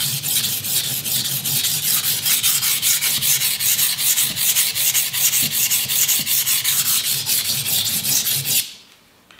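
Steel kitchen knife blade scraped back and forth on the coarse 320-grit side of a cheap, wet whetstone, in quick, regular strokes. The scraping stops abruptly shortly before the end. The blade is soft steel and the stone is soft, slow-cutting abrasive, used here to grind a new edge and raise a burr.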